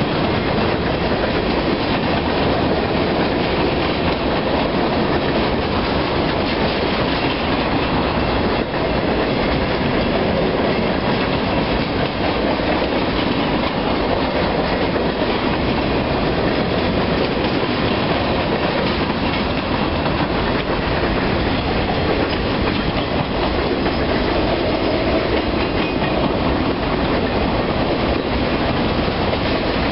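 Freight train's cars rolling past: a steady, unbroken rumble and rattle of steel wheels on the rails as a long string of centerbeam flatcars, gondolas and boxcars goes by.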